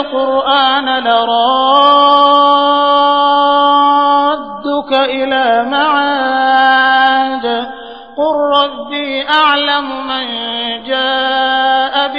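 A man chanting the Quran in Arabic in tajweed style, slow and melodic with long held notes, breaking off briefly about four and a half seconds in and again near eight seconds.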